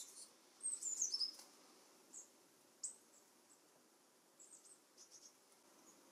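Long-tailed tits giving their high-pitched twittering contact calls: a quick burst of calls, some sliding down in pitch, about a second in, then short, thin calls scattered through the rest.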